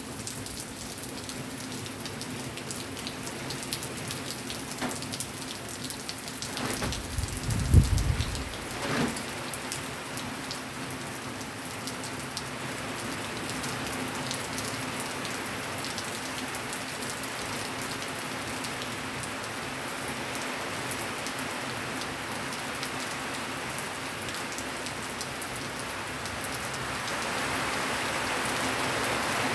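Steady rain falling and pattering on surfaces, growing a little louder near the end. A short, loud low thump comes about eight seconds in.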